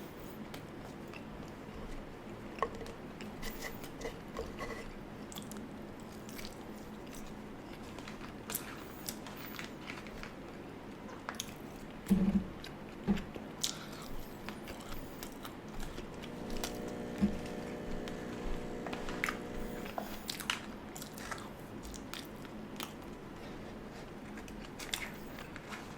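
Close-miked chewing and biting of an In-N-Out Double-Double burger: soft wet mouth sounds with scattered crisp smacks and crunches, and a louder knock about halfway through.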